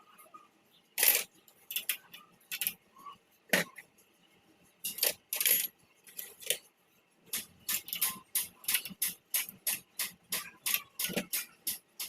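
Sharp metallic clicks and clinks of tools and engine parts being handled. They come in scattered ones and twos at first. From about seven seconds in they become a quick, fairly regular run of about four clicks a second.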